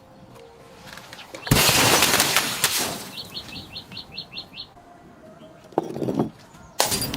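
A loud smashing crash about a second and a half in, then a quick run of about eight short high chirps from a bird. Two shorter crunching hits come near the end.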